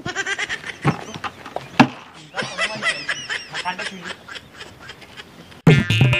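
Rapid, high chattering calls repeating in quick runs, with two sharp knocks in the first two seconds. Near the end, guitar music cuts in suddenly and is louder.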